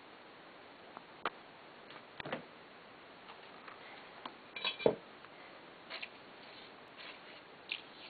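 Scattered light clicks and knocks: hands and objects handled in and around a porcelain toilet bowl as toilet paper is put in. The loudest knock comes a little before the middle.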